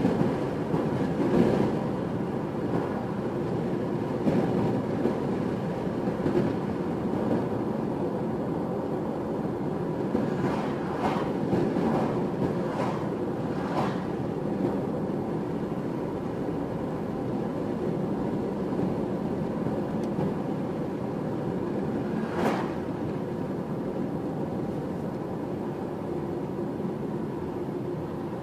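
Car cabin noise while driving at highway speed: a steady rumble of tyres and engine, with a few brief knocks or rattles along the way.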